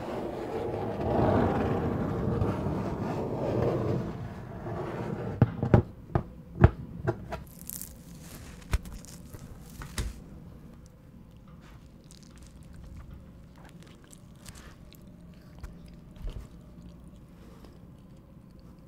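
Cardboard pizza box handled and opened close to the microphones: a scraping rustle for the first four seconds or so, then a run of sharp cardboard clicks and knocks. After that come softer, scattered crackles as a pizza slice is lifted out and folded.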